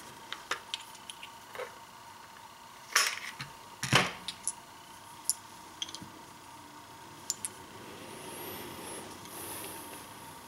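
Sharp clicks and clinks of brass 300 Blackout cartridges being popped out of a 10-round rifle magazine and stood on the table. The two loudest come about three and four seconds in, and a light rustle follows near the end.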